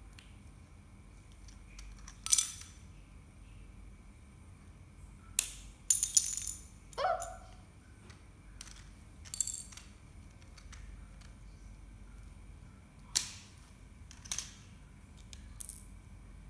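Plastic Lego bricks being pulled apart with sharp clicks and snaps, and loose pieces clattering onto a tile floor, in scattered strokes a few seconds apart. A brief falling squeak comes about seven seconds in.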